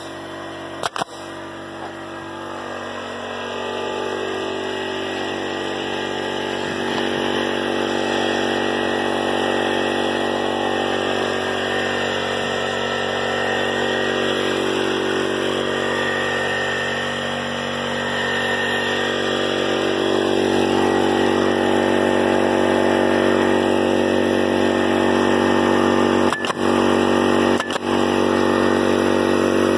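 Air compressor motor running steadily, growing louder a few seconds in and again about two-thirds through. A pneumatic nail gun fires one sharp shot about a second in and two more near the end.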